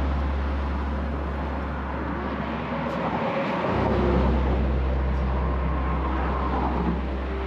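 Outdoor ambience of road traffic over a steady low rumble, which drops out briefly about three seconds in and comes back.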